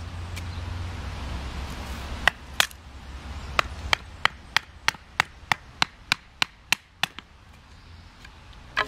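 Batoning: a wooden baton knocking on the spine of an ESEE-5 knife, driving the blade down to split a thin upright stick. The sharp knocks come in a steady run of about three a second from about two seconds in to about seven seconds in, with one more near the end.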